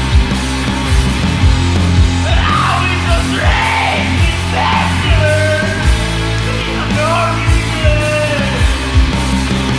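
Rock song by a guitar, bass and drums trio: electric guitar, bass guitar and a steady drum beat, with melodic lines sliding up and down over them.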